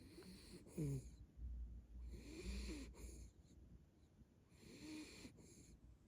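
Toy Pomeranian breathing in its sleep: three faint, wheezy breaths about two seconds apart that sound close to a light snore.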